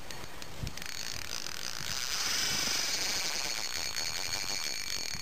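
Fishing reel clicking rapidly and steadily while a hooked carp is being played; the sound swells about a second in.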